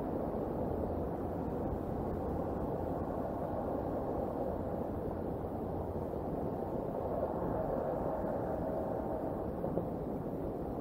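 Steady rain falling, an even dull hiss with no distinct drops or calls.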